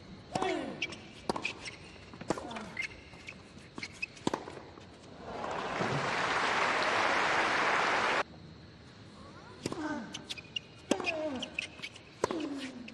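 Tennis rally on a hard court: sharp racket strikes on the ball, most followed by a player's falling grunt. Crowd applause swells about five seconds in and cuts off suddenly about three seconds later. Then another rally of hits and grunts follows.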